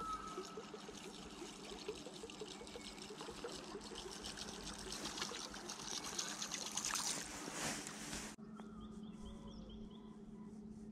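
Water trickling and gurgling as a surface lure is wound in across the river towards the boat, with many small splashy ticks. About eight seconds in it cuts off abruptly, leaving quiet river air with birds chirping and a steady low hum.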